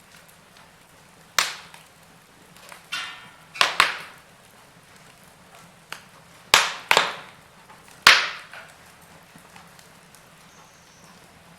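Wood fire crackling: a string of sharp pops and snaps, about seven in all and loudest in the middle, over a faint steady hiss.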